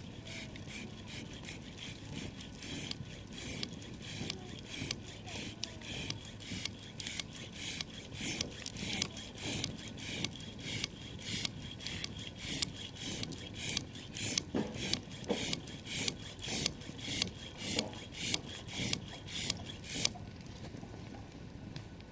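Campfire crackling softly under a loud, regular train of short raspy strokes, about two or three a second, which stops shortly before the end.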